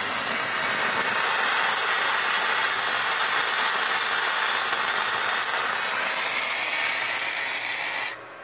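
Gasless flux-core MIG welding arc from a MultiPro MIG-MMA/TIG 160A-SC inverter welder running 0.8 mm wire at about 99 A: a steady, loud arc noise that cuts off abruptly near the end as the trigger is released. Flux-core wire without shielding gas throws a lot of spatter.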